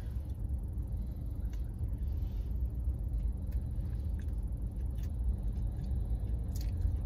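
Steady low rumble of a car's interior, with a few faint, scattered clicks from chewing.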